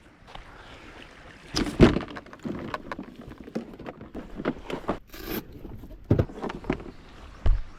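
Irregular knocks, clatters and scrapes of gear being handled in a small boat, with the loudest thump about two seconds in and a short hissing rush around five seconds.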